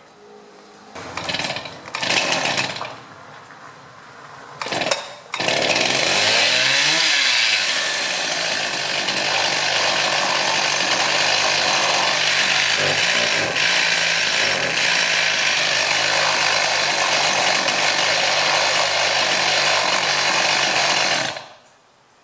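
Stihl MS 261 two-stroke chainsaw being started: two short bursts as it fires, then about five seconds in it catches and runs, its speed dipping and picking up again before settling into a steady run for about fifteen seconds and cutting off suddenly. The owner judges it only to be showing signs of life, with the muffler still to be checked.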